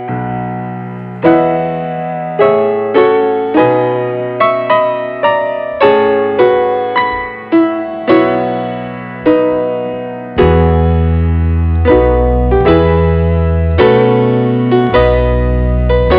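Background piano music: a gentle melody of struck notes, with a fuller bass coming in about ten seconds in.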